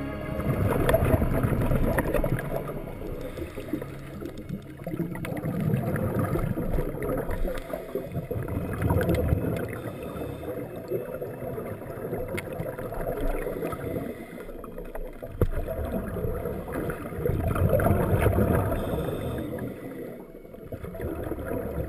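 Muffled underwater water noise heard through a camera housing: low gurgling and rushing that swells and fades several times.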